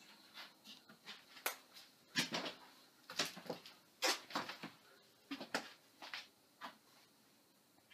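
A string of irregular knocks and clicks, like handling and bumping in a small wooden room, the loudest cluster between about two and four and a half seconds in. A faint steady high tone fades out within the first half-second.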